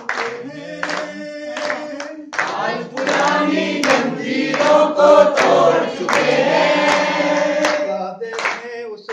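A group of voices singing together to steady hand clapping, about two claps a second. The singing swells loudest through the middle few seconds, and the clapping stands out at the start and near the end.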